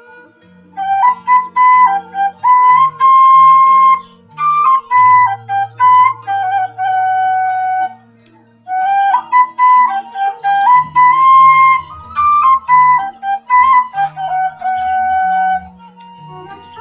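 Sundanese bamboo suling playing a stepping melody in phrases with short breaks, over a lower accompaniment of separate bass notes.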